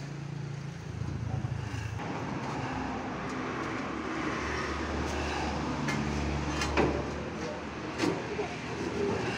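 A vehicle engine running steadily, with a few sharp knocks about two-thirds of the way through.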